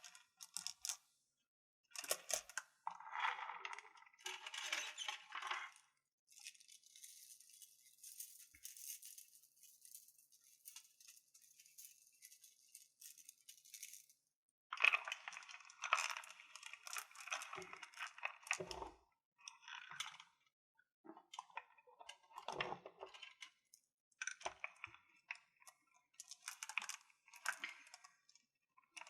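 Crystals clinking and being tapped against each other for ASMR, in irregular clusters of small clicks and clatters. A soft, high rustling hiss runs through the middle.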